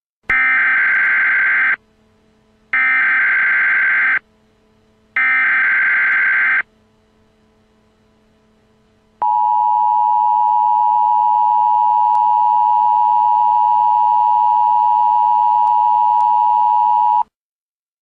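Emergency Alert System tones: three bursts of digital data header, each about a second and a half long and a second apart, then a steady two-tone attention signal for about eight seconds that cuts off sharply. The tones announce an emergency voice alert.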